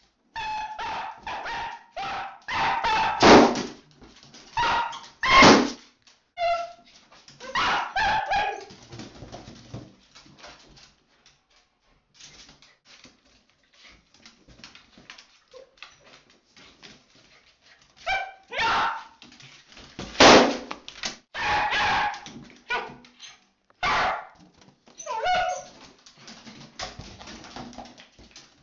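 Dachshund barking harshly in excited volleys while playing with balloons, with a quieter stretch of about eight seconds in the middle.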